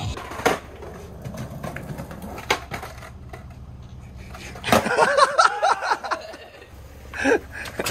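Skateboard wheels rolling over a concrete driveway with a low rumble, broken by a few sharp clacks of the board. A voice calls out briefly midway.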